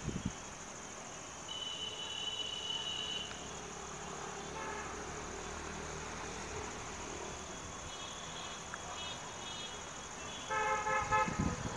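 Crickets trilling steadily. A distant high-pitched horn holds one note for about two seconds near the start, and louder, lower horn blasts sound in short pulses near the end.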